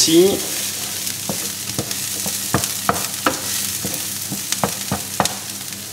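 Diced chorizo and onion sizzling in a hot frying pan while a wooden spoon stirs them, knocking and scraping against the pan in irregular clicks.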